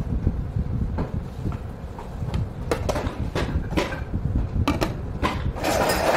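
Melamine plates and bowls knocking and clacking lightly as they are taken out of a dinner-set box and set down on one another, a scatter of short clacks with a burst of rustling near the end.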